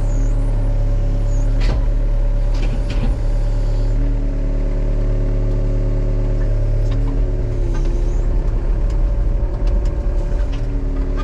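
Case tracked excavator's diesel engine running steadily, its pitch shifting slightly about four seconds in and again near eight seconds, with a few sharp knocks scattered through.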